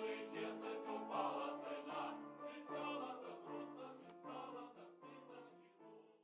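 Choral music: several voices singing sustained notes together, growing softer near the end and then cutting off.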